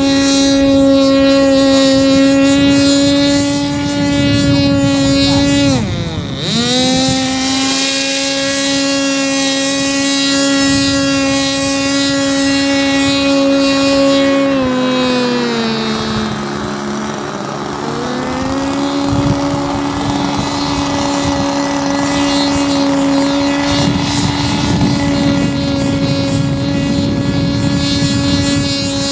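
Radio-controlled model hovercraft's motor and fan running at a steady high pitch. The pitch dips sharply and recovers about six seconds in, sags lower for a few seconds around the middle, then climbs back up.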